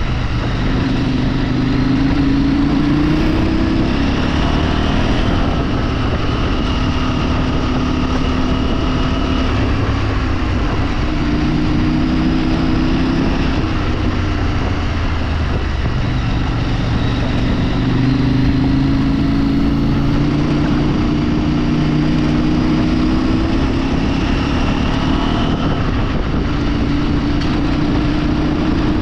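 A vehicle's engine running under way, its pitch repeatedly climbing and then dropping as it accelerates and shifts, over steady road and wind rumble.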